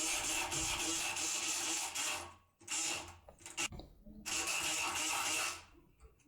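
Multipick Kronos electric pick gun buzzing as it vibrates the pins of a lock cylinder, in runs: about two seconds, a brief burst with a few clicks, then another run of over a second.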